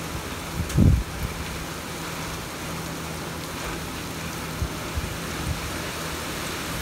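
Heavy rain falling steadily on a flooded street and parked cars, with the low running of cars driving slowly through the standing water. There is a brief low thump about a second in.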